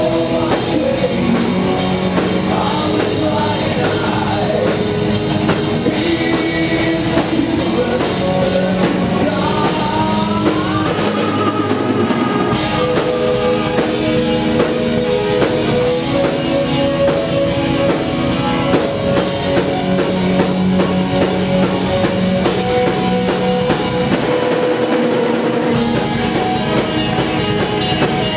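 Live rock band playing: a female lead vocal over electric guitar and drum kit, giving way about halfway through to an instrumental passage with busy drums and cymbals under sustained guitar notes.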